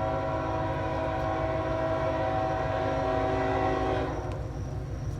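Diesel locomotive air horn sounding one long blast, a chord of several notes held steady, cutting off about four seconds in, over a steady low rumble.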